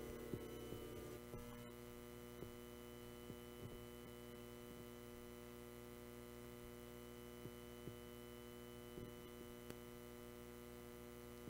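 Near silence with a steady electrical mains hum. The last held chord of the guitar-accompanied hymn dies away in the first second or so, and a few faint, soft knocks come at irregular moments.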